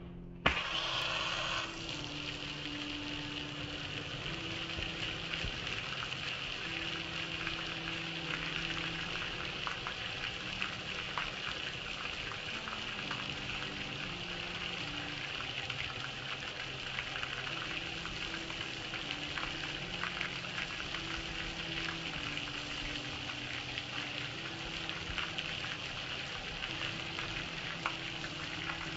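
Soapy water streaming and splattering over a metal gas grill, a steady hiss full of small spatters that starts suddenly about half a second in. Faint background music plays underneath.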